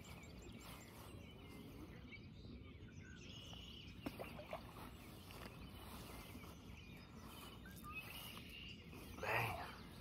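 Quiet outdoor ambience with a few faint bird chirps. A single sharp click comes about four seconds in, and a brief louder noise comes near the end.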